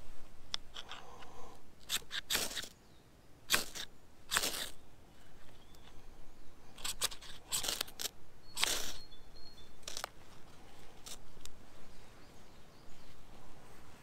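Ferrocerium rod scraped hard with a knife's spine, about ten short rasping strikes in irregular bursts, throwing sparks to light a pile of wood shavings.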